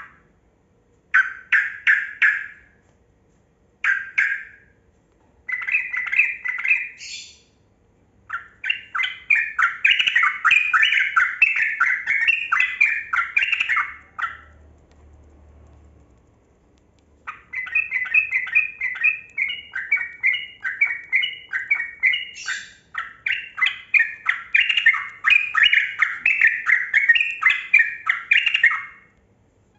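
Yellow-vented bulbul (trucukan) singing: a few short bubbly phrases, then long rapid-fire runs of chattering notes (the 'ropel panjang' style), broken by a pause of about three seconds midway.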